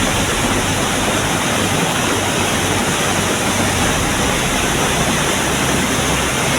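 A river in flood, its high water rushing past in a steady, loud roar with no breaks.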